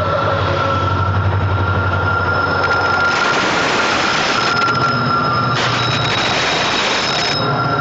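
Train passing close by over a high railway bridge: a steady loud rumble of wheels on rail with a steady high squeal. About three seconds in and again about five and a half seconds in, a harsher rushing noise swells for a second or two.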